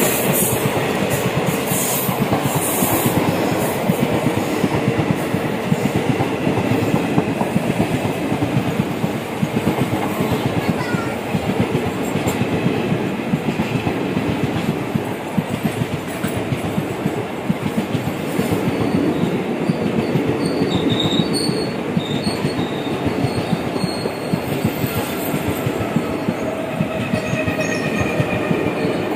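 Passenger coaches of an express train passing close by on the adjacent track: a loud, steady rumble of wheels with rapid clickety-clack over the rail joints.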